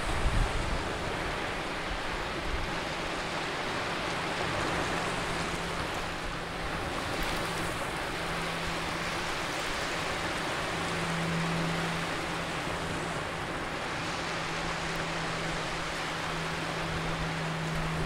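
Small surf breaking and washing up a sandy shore: a steady rushing wash that swells and eases with each wave. A faint, steady low hum runs underneath from about two seconds in.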